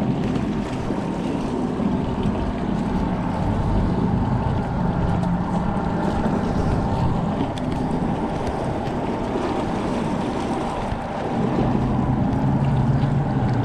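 A steady low engine drone, dipping briefly near the end, with wind noise on the microphone.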